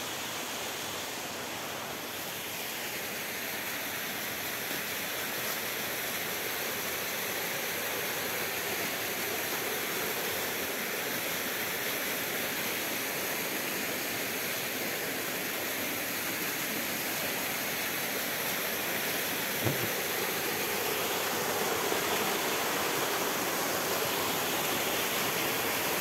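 Rushing water of a forest stream, a steady hiss that grows gradually louder.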